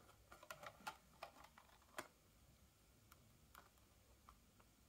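Faint clicks and crackles of a toy car's blister pack, its plastic bubble and cardboard card being handled and turned over in the hands: a cluster of small clicks in the first second or so, a sharper click about two seconds in, then only a few scattered ticks.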